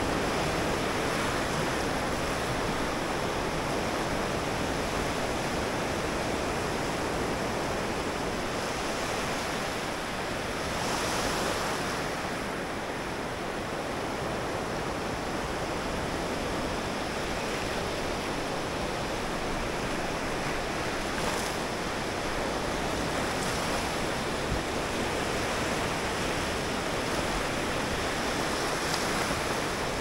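Small Black Sea waves breaking and washing up a sandy beach: a steady hiss of surf that swells slightly as each wave comes in.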